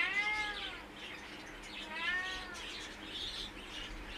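White Persian kittens meowing twice, each meow a short call that rises and then falls in pitch, the second coming about two seconds after the first.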